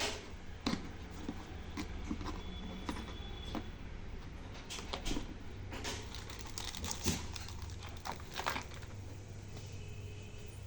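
Packaging being handled and opened: irregular crinkling and rustling with scattered sharp clicks and taps.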